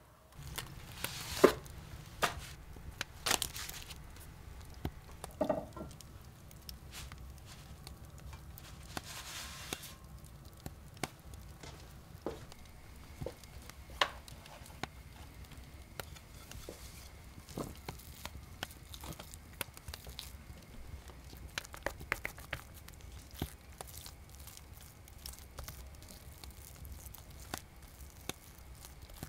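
Food preparation sounds: scattered knocks and taps, the loudest about a second and a half in, and a short rustle about nine seconds in, over a low steady hum.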